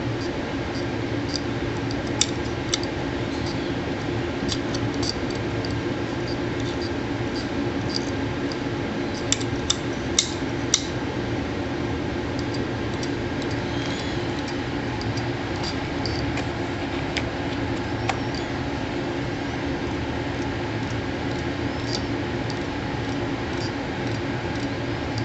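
Opened laptop hard disk running with its lid off: a steady hum from the spinning platters, broken by scattered sharp ticks and clicks, a few of them bunched about ten seconds in. The ticking is the read/write head moving back and forth without being able to read the disk.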